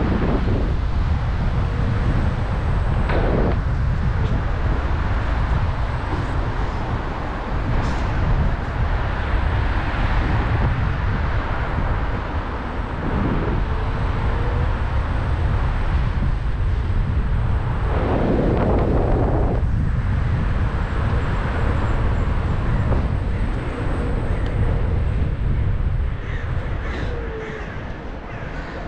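Steady outdoor street noise with a heavy low rumble of wind on the microphone, heard while riding an electric scooter through city traffic. A few louder passing vehicle sounds swell up, the longest about two-thirds of the way through, and the noise eases near the end.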